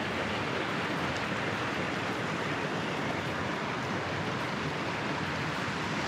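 Waterfall and creek water rushing steadily over rocks, very loud, an even rush of water noise with no breaks.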